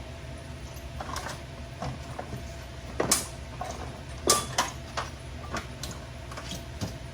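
Handling of metal tools and parts during a car teardown: scattered sharp metal knocks and clanks, the two loudest about three seconds and just over four seconds in, over a steady low shop hum.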